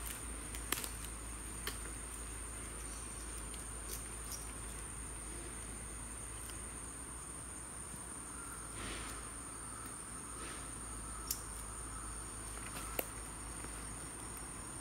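Insects trilling in a steady, high-pitched continuous tone, with a few sharp clicks scattered through it.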